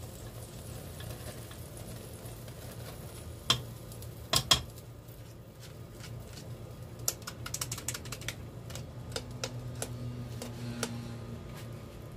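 Spoon knocking and scraping against a metal strainer as boiled rice is tipped into a pot: a few sharp knocks about four seconds in, then a run of light clicks, over a steady low hum.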